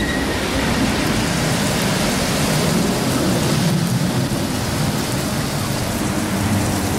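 Steady hiss of rain with bicycle tyres on wet pavement, heard from a moving bike.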